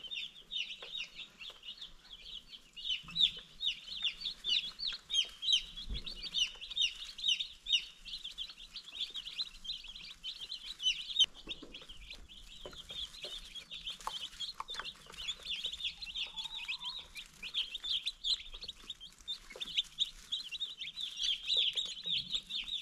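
A brood of young meat chicks peeping without a break: a dense stream of short, high cheeps overlapping one another.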